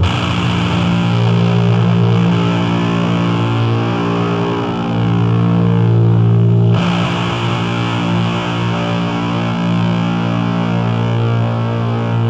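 Loud live noise music: a distorted drone of several steady held tones through effects, with a dense hiss over it. The texture shifts abruptly a little past halfway.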